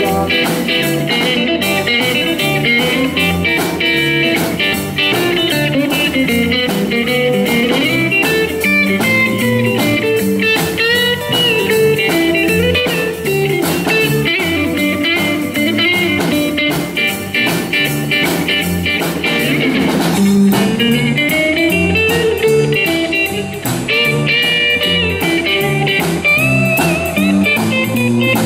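Live rockabilly trio playing an instrumental passage: a hollow-body electric guitar over a moving upright double bass line and a drum kit keeping a steady beat.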